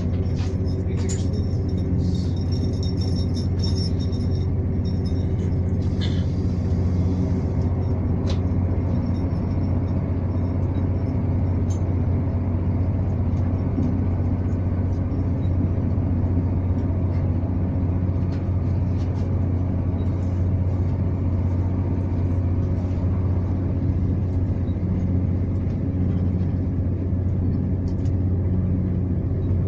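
Steady rumble inside a ScotRail Class 170 Turbostar diesel multiple unit running at speed: a low, even hum from the underfloor diesel engine and wheels on the rails. A few sharp clicks and rattles come in the first dozen seconds.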